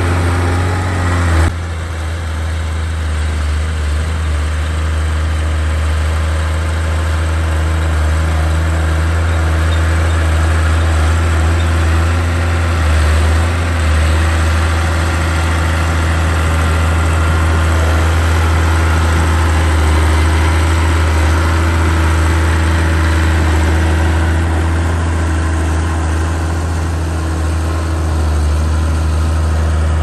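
Small crawler bulldozer's diesel engine running steadily with a deep, even hum as the dozer pushes soil. The engine note shifts abruptly about a second and a half in.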